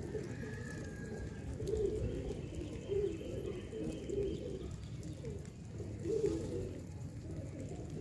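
A flock of Sherazi fancy pigeons cooing, several separate coos overlapping one another.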